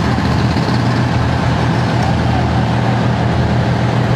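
A steady, loud, low engine drone that does not change.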